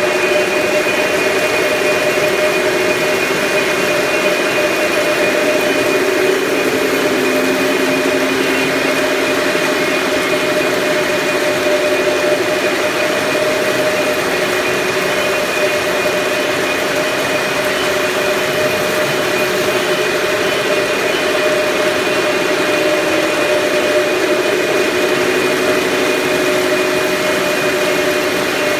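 A steady mechanical drone: an unbroken hum and hiss with a few held tones, the lower ones wavering slightly in pitch.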